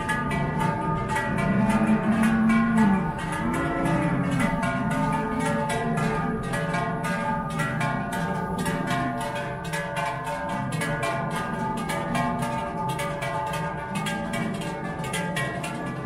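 Large Appenzell herdsmen's cowbells (Schellen) swung by walking herdsmen, clanging rapidly and rhythmically with their ringing tones overlapping in a dense chord.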